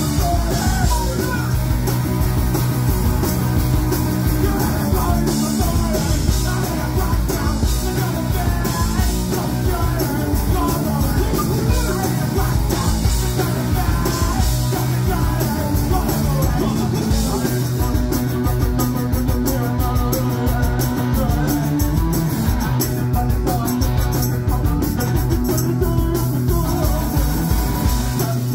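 Punk rock band playing live: shouted vocals over electric guitars, bass guitar and a drum kit.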